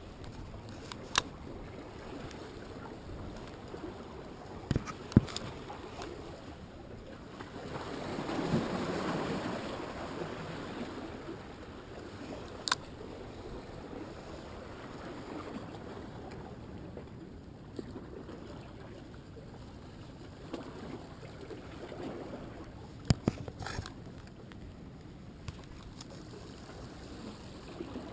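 Ocean surf washing in steadily, with one wave surging louder about eight to ten seconds in. A few sharp clicks and knocks stand out over it at scattered moments.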